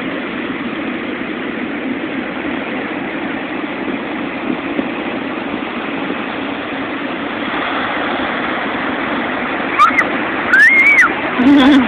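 Steady rush of ocean surf and wind on a phone microphone, with a few short high squeals that rise and fall near the end.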